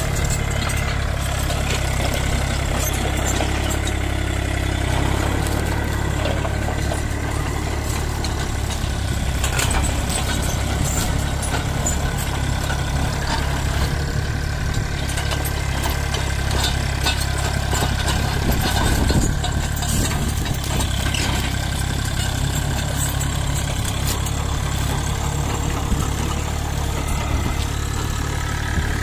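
Excavator's diesel engine running steadily.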